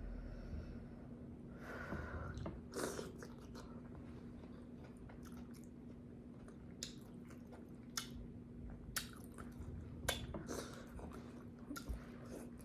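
A person chewing and smacking on food, with scattered short wet mouth smacks and clicks.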